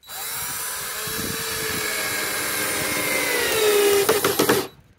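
Cordless drill driving a screw through plywood into a wooden frame, its motor whining steadily with the pitch sagging slightly as the screw bites, then stopping just before the end.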